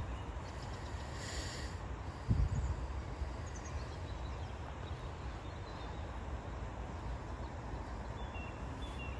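Wind rumbling on the microphone over the steady wash of a shallow river, with one brief louder buffet about two seconds in.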